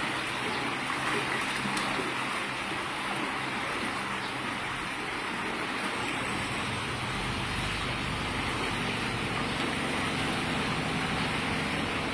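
Masses of farmed fish thrashing at the pond surface in a feeding frenzy as feed is thrown to them: a steady, dense splashing and churning of water.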